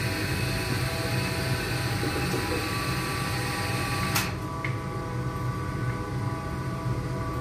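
Old wood-chip boiler installation running: a steady motor and feed-drive hum with several steady tones in it, and one sharp click about four seconds in.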